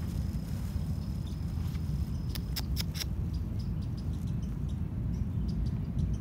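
Low rumble on a handheld phone microphone outdoors, with a steady high insect trill that stops a little over two seconds in. A quick run of four sharp clicks follows, then fainter scattered ticks.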